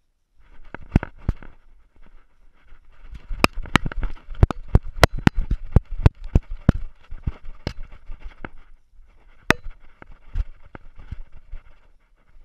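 Jostling noise from a GoPro camera on a moving dog's collar: sharp irregular clicks and knocks against the case, several a second through the middle, over scratchy rustling.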